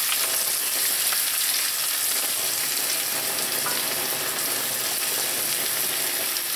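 Diced onion sizzling in hot vegetable oil in a frying pan while being stirred with a spatula: a steady crackling hiss.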